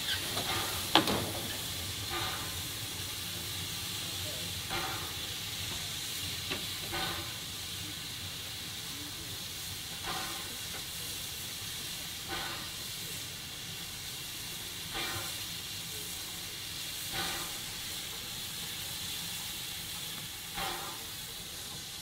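Standing steam tank locomotive No. 24 Calbourne, an LSWR O2 class 0-4-4T, letting off a steady hiss of steam while at rest in the station. A short beat comes every two to three seconds, and a sharp clank sounds about a second in.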